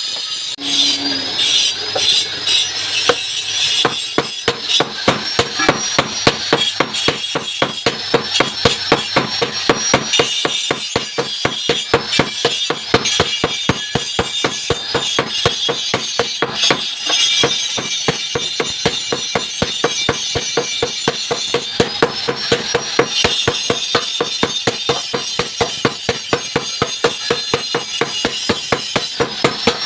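Blacksmith hammering a steel hoe blade on an anvil, fast steady strikes about four to five a second, as the hoe is re-forged to sharpen it.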